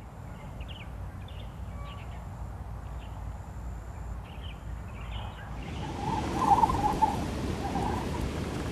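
Field recording of birds: short chirps over a low rumble and a thin high steady tone that stops and starts. About five and a half seconds in, a louder even rushing noise takes over, with brighter calls among it.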